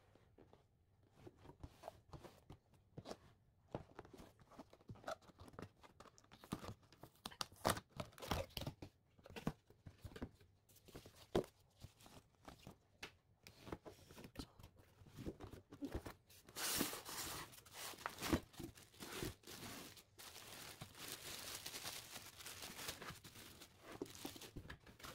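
Packaging being handled while a stand mixer is unboxed: scattered knocks and scrapes of cardboard and styrofoam packing, then from about 16 seconds in a long, continuous crinkling of the plastic bag wrapped around the mixer.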